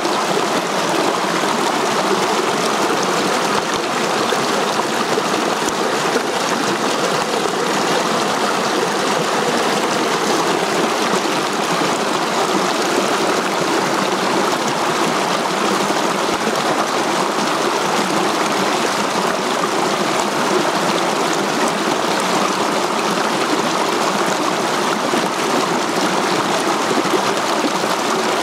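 Mountain stream rushing and splashing over boulders in small cascades, a steady even flow.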